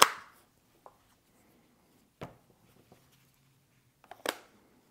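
Sharp clicks and taps of Apple Vision Pro headset parts being handled and fitted together by hand. There is a loud click at the very start, a couple of lighter clicks, then a short cluster of clicks about four seconds in.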